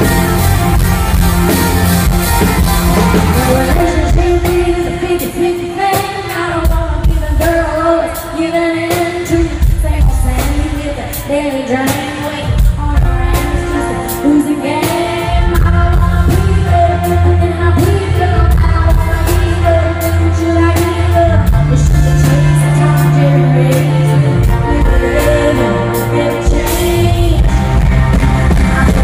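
Live band performance: a woman singing lead into a microphone over drums and bass, loud and heard from the audience.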